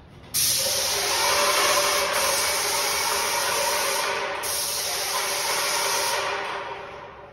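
Water spraying from a hand-held hose nozzle onto a large glass window. The spray starts suddenly about a third of a second in, breaks off briefly twice, and tapers away near the end.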